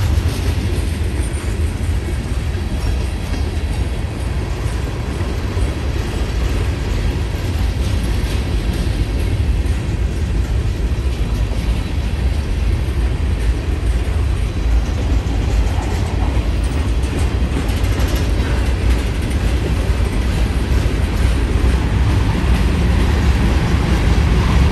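Freight cars, mostly covered hoppers, rolling past on steel wheels: a steady, loud rumble of wheels on rail.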